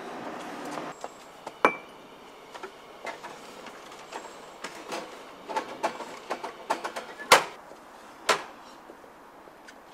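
Scattered small clicks and knocks of handling at a front door's metal letterbox, with two sharp knocks about seven and eight seconds in.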